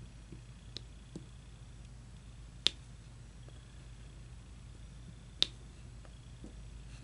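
Sharp light clicks from painting work: two clear ones about two and a half seconds apart, with a couple of fainter ticks before them, over a faint steady room hum.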